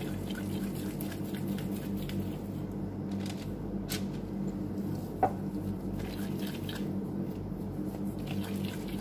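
Gloved hands rolling soft cookie dough into balls and setting them on a parchment-lined baking tray: faint rustles and soft squishes over a steady low hum, with one sharp click a little after five seconds in.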